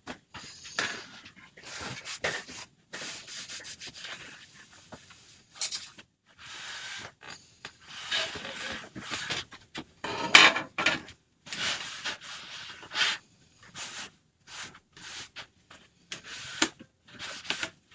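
Irregular rubbing and scraping strokes against a craft board, as paste is spread or wiped over it.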